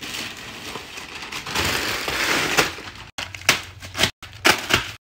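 Plastic bag rustling as snack packets are pulled out of it, then crinkly chip bags and wrapped packets set down one after another, with several short, sharp crackles in the last two seconds.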